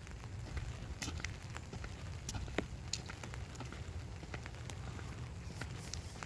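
Light rain: scattered raindrops pattering in irregular, sharp little ticks over a steady low rumble.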